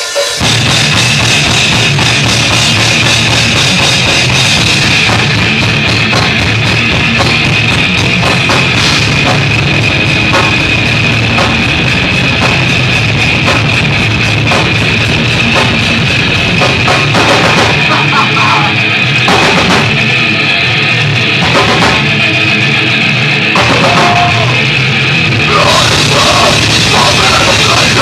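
A metal band playing live and loud: distorted electric guitars, bass guitar and a drum kit.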